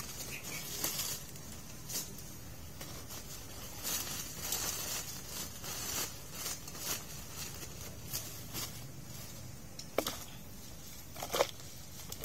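A mass of small dead fish sliding and pattering out of a woven plastic sack into a plastic basin, the sack rustling and crinkling in short irregular bursts. Near the end come two sharper knocks as hands dig into the pile of fish.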